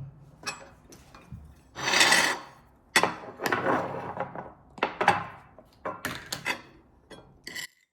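A series of irregular scraping and rubbing strokes, like utensils or food being worked against a hard surface in a kitchen. The strongest stroke comes about two seconds in.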